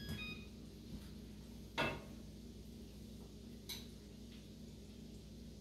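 Kitchen utensil clinking against dishware: one sharp clink about two seconds in and a lighter one a couple of seconds later, over a faint steady low hum.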